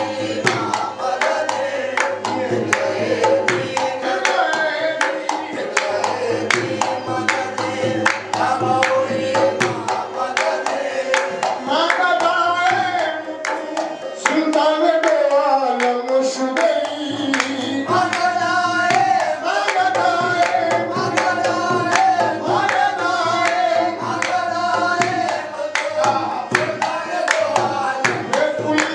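Singing over a steady percussion beat.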